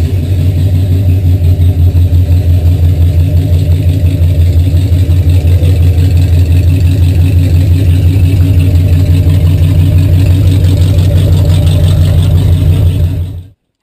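GMC one-ton 4x4 truck's engine running with a loud, deep, evenly pulsing rumble as the truck drives slowly out of the garage, back running after its rebuild. The sound cuts off suddenly near the end.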